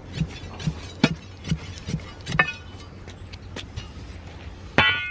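Digging tool striking into the soil of a fence-post hole, thudding about twice a second, then more sparsely, followed near the end by a loud metallic clink with a ringing tone.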